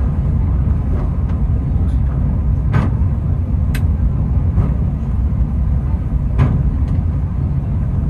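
Takao Tozan cable car (funicular) running downhill on its track, heard from inside the car: a steady low rumble with occasional sharp clicks and knocks from the track.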